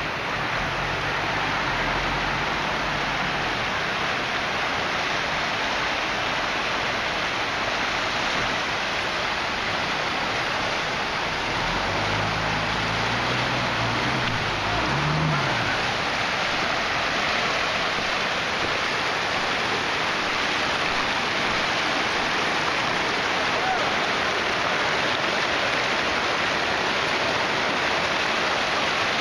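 Steady rush of floodwater, a dense even hiss that runs without a break. A low hum shows up briefly near the start and again about 12 to 15 seconds in.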